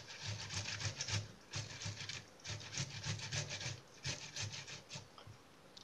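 Tomato being grated on a metal box grater into a glass bowl: repeated rasping strokes, about three a second, each with a light low knock, stopping shortly before the end.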